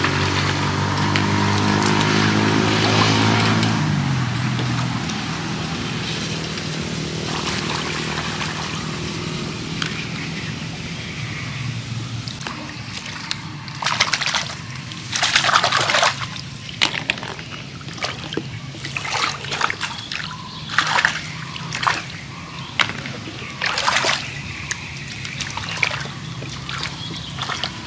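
Hands splashing and rustling in shallow muddy water and wet grass while picking snails, in a run of short sudden splashes that come thick from about halfway through. A low steady hum sounds at the start and fades away.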